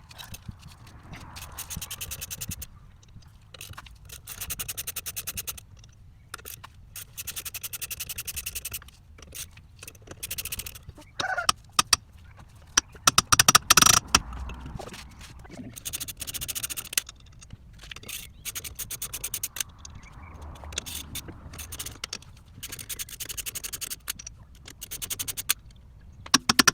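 Hand tools working on a car's front brake assembly: repeated runs of rapid metallic clicking, each a couple of seconds long, with scraping and a few loud metal knocks near the middle.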